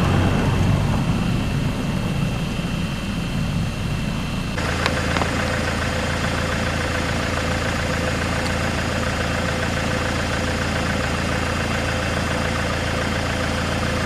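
Vehicle engines running at night: a shifting engine rumble for the first few seconds, then, after a sudden change, a car engine idling with a steady low hum.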